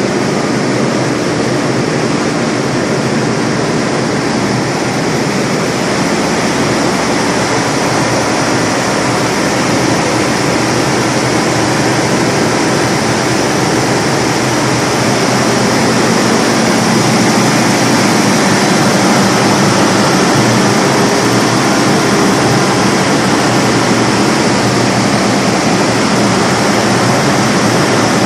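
SDMO 550 kVA standby diesel generator running steadily at no load, a loud, dense engine noise that grows a little louder about halfway through.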